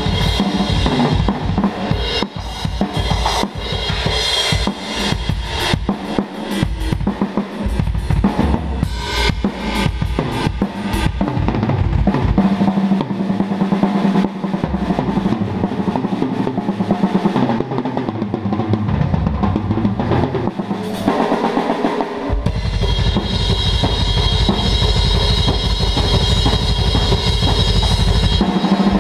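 A full drum kit being played for a sound check: kick drum, snare and cymbals in quick, dense patterns. About three-quarters of the way through it turns into a steady, fast kick pattern under a constant wash of cymbals.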